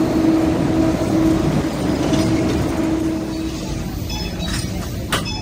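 Siemens-Adtranz metro train standing at the platform with a steady hum. Near the end come a run of short high beeps and a sharp click.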